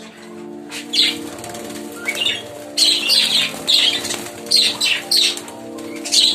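Budgerigars chirping and chattering in a cage, a few scattered chirps at first and then a dense run of rapid chirps from about three seconds in, over a steady low hum.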